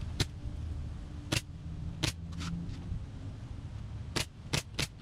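Pneumatic staple gun firing staples into plywood: seven sharp shots at uneven intervals, three of them in quick succession near the end, over a low steady hum.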